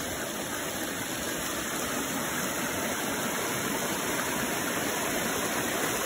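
Water rushing and splashing over bare rock near the head of a waterfall, churning into whitewater: a steady rushing noise that grows slightly louder toward the end.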